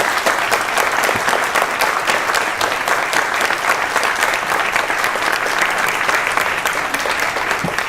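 An audience applauding, dense and steady, starting to die away right at the end.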